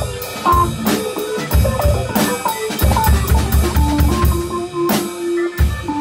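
Small rock band playing live: a drum kit with a quick run of low drum hits in the middle, over electric guitar and digital piano.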